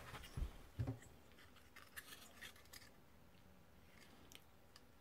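Faint handling noise from a circuit board being turned over in the hands: two soft bumps in the first second, then scattered light clicks and rubs.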